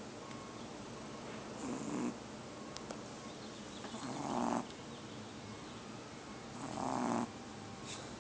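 A sleeping 2½-month-old snoring: three snores about two and a half seconds apart, each swelling and then stopping sharply.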